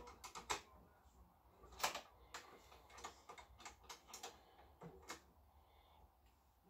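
Light, irregular clicks and taps of hand work on a Honda Vision scooter's handlebar fittings, about a dozen in all, the sharpest about two seconds in.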